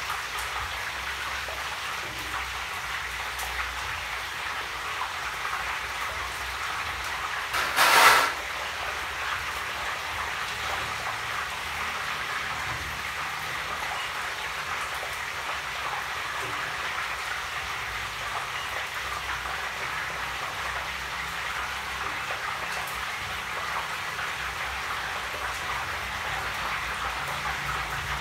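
Food sizzling and crackling steadily in hot oil in a wok on a stove, with one brief, much louder burst about eight seconds in.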